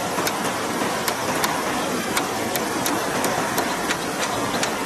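Rushing river water running over rocks, a steady loud hiss, with light, sharp clicks and taps coming irregularly about two or three times a second.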